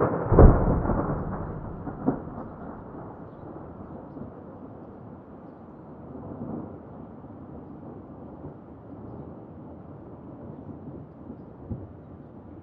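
Recorded thunder: a loud, deep thunderclap about half a second in, a second sharp crack about two seconds later, then a long low rumble that carries on at a lower level, with one more small crack near the end.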